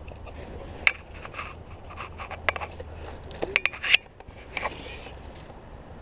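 Scattered knocks, clicks and scrapes on shoreline rocks while a landed fish is handled. The sharpest knocks come in a quick cluster about three and a half to four seconds in.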